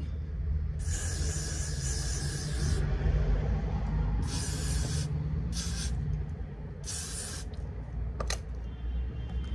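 Aerosol hairspray sprayed onto the wig in four hissing bursts, the first about two seconds long and the other three shorter, over a steady low hum.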